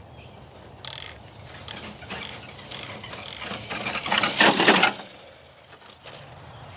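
Brushless CEN F450 radio-controlled truck on a 2S battery driving over dry grass and dirt: a dense crackling and rattling from its tires and chassis, swelling to its loudest about four to five seconds in and then falling away.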